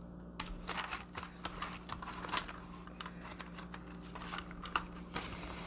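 Hands handling paper banknotes: soft rustling with many small irregular taps, one a little louder about two and a half seconds in, and a calculator key pressed.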